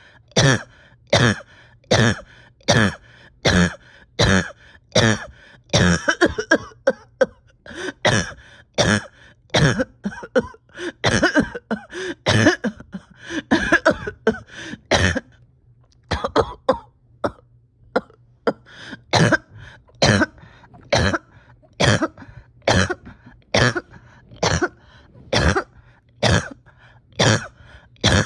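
A person coughing over and over in a painful fit from a tight chest: short hard coughs about one and a half a second. In the middle the coughs run together with drawn-out, pitched sounds between them, then ease for a moment before the regular coughing resumes.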